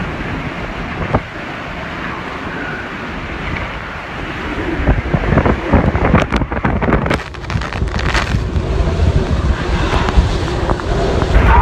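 Hurricane eyewall winds, gusts of over 140 mph, blasting against the microphone. The wind grows louder and gustier about halfway through, with several sharp knocks in the strongest gusts.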